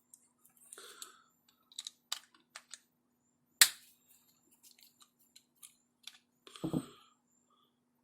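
Small clicks and light taps of chainsaw carburetor parts and tools being handled during disassembly, with one sharper click about three and a half seconds in and a duller knock near the end.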